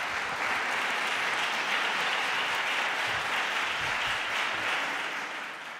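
Audience applause, steady and even, tailing off slightly near the end.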